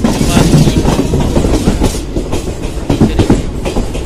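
15216 Express passenger train running, its coach wheels clattering over the rail joints in an irregular clickety-clack under a loud, continuous rumble, heard from inside a coach.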